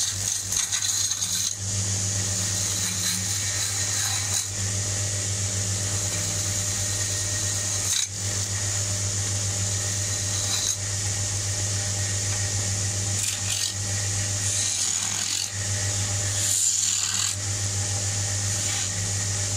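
Motor-driven wood lathe running with a steady hum while a hand-held turning tool cuts a spinning wooden blank, a continuous scraping hiss of shavings coming off, with a few brief breaks as the tool lifts.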